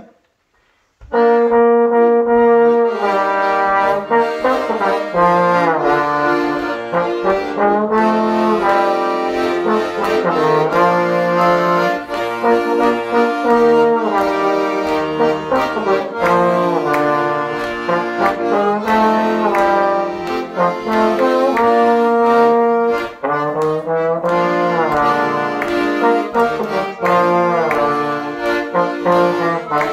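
Slide trombone and piano accordion playing a lively duet that starts on B flat, coming in about a second in after a brief silence. The accordion holds chords while the trombone carries the melody with slides between notes.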